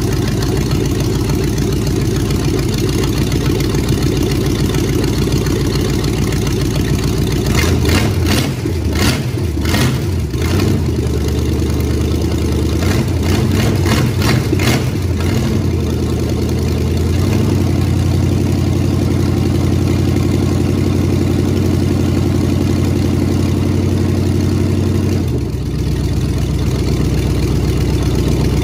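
Rebuilt Chevrolet 350 small-block V8 idling steadily with a new intake manifold and carburetor. The idle changes pitch twice as the carburetor and distributor are worked on, and several sharp clicks come about a third of the way in.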